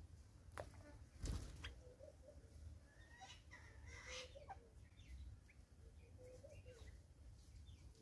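Faint wild bird calls: scattered short chirps and whistles, thickest in the middle, over soft repeated low notes. About a second in there is a short louder burst as the small bird at the tyre bird bath takes off.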